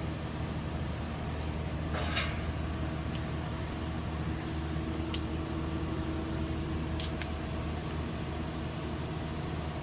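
Commercial refrigerator's compressor and condenser fan running, a steady low hum. A brief rustle about two seconds in and two short clicks later are handling noises.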